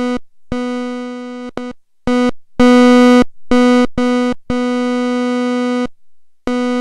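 Virtual modular synthesizer note in VCV Rack, gated by an ADSR envelope with attack and decay at zero. The same steady, harmonic-rich tone is played about nine times, starting at full sustain level the instant a key is pressed and cutting off at once on release. The notes vary in length, and their loudness shifts as the sustain level is changed, loudest about two and a half seconds in.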